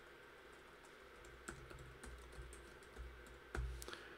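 Faint typing on a computer keyboard: a run of light, irregularly spaced key clicks.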